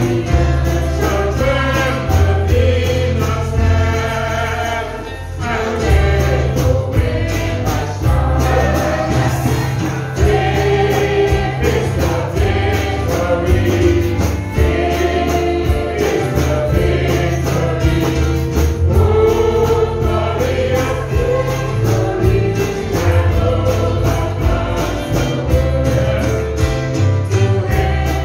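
Gospel praise song sung by several vocalists on microphones over a backing band, with a steady bass line and beat.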